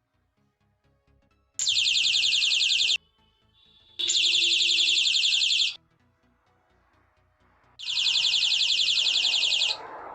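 Electronic bird-chirp sound from an NE556 dual 555 timer circuit: three bursts of a rapid, high warbling trill, each lasting about one and a half to two seconds, with short silences between.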